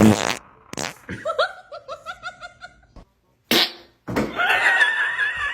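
A short fart sound at the start, followed by rapid high-pitched giggling that trails off over about two seconds. About three and a half seconds in there is another brief burst, then a sustained, wavering high-pitched squeal runs to the end.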